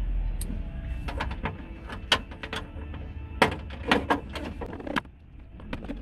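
A car's power window motor runs briefly at the start as the door glass is raised, followed by a run of sharp clicks and knocks from hands handling plastic and metal parts inside the stripped door.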